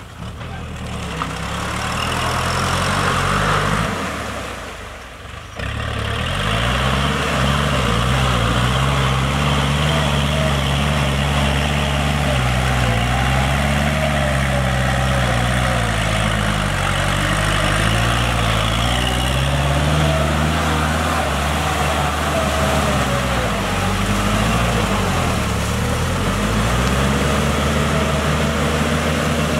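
Kubota L5018 tractor's four-cylinder diesel engine running under load as it pulls a rotary tiller through flooded paddy mud, its pitch slowly rising and falling. It is fainter for the first five seconds, then steady and louder.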